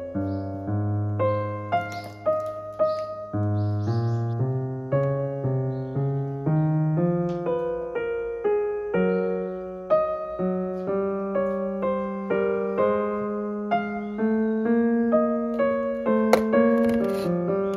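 Background piano music, a melody of held notes changing about once or twice a second, with a few faint rustles over it near the start and near the end.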